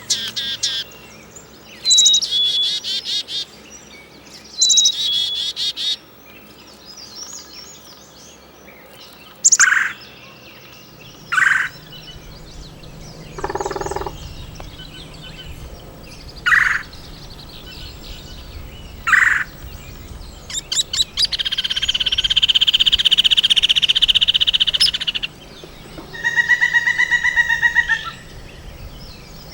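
Several different wild birds calling and singing one after another: three quick song phrases at the start, then four sharp single call notes spread through the middle, a long buzzy trill about three-quarters in, and a rapid pulsed call near the end.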